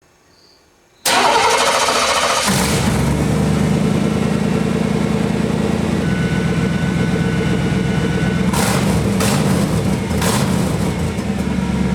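1993 Chevrolet Caprice V8 starting: the starter cranks for about a second and a half, the engine catches and settles into a steady idle through its freshly repaired exhaust system.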